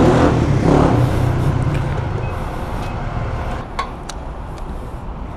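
A dirt bike's engine running and fading away over the first couple of seconds as it rides off. Near the end come two sharp clicks at a motorcycle's fuel filler cap.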